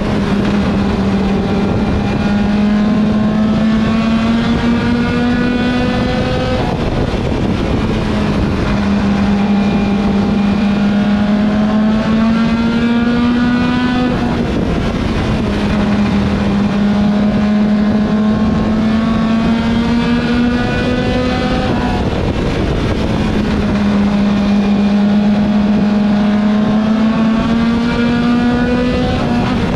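Mini stock race car's four-cylinder engine under full throttle, heard from the car's roof. The engine note climbs steadily along each straightaway and drops sharply as the driver lifts for each turn, repeating about every seven and a half seconds.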